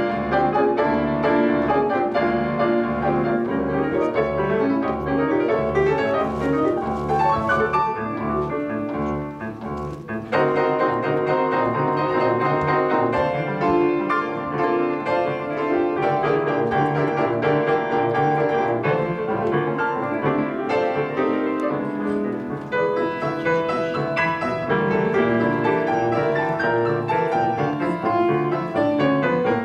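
Piano duet on two pianos, playing a fast, loud piece. A low bass note pulses over and over for about the first ten seconds. The music then eases briefly and comes back in with full chords.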